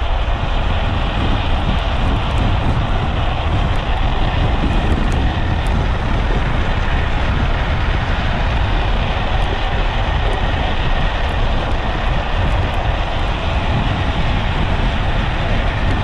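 Steady wind rush over an action camera's microphone with the low rumble of a speed trike's wheels rolling downhill on asphalt at speed.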